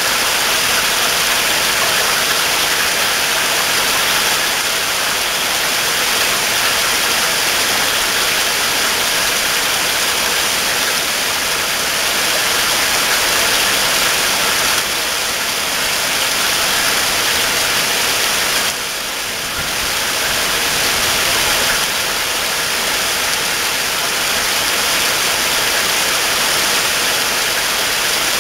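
Heavy rain falling steadily, a dense even hiss that softens briefly about two-thirds of the way through.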